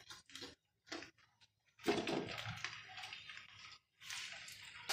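Raw chicken pieces being dropped into oil in a non-stick frying pan: a few faint clicks and knocks, then short stretches of light hissing as the pieces land in the warming oil.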